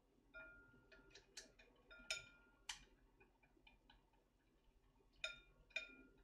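A spoon clicking and clinking against a small metal mesh strainer as beaten eggs are pushed through it to strain out the chalazae. The taps are irregular and some ring briefly, with two louder clinks near the end.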